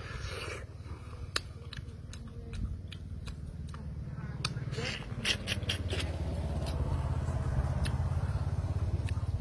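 Eating sounds: lips sucking at a piece of fish and the fish being picked apart by hand, with scattered sharp clicks and crackles, a quick run of them about five seconds in. A steady low hum runs underneath, growing louder in the second half.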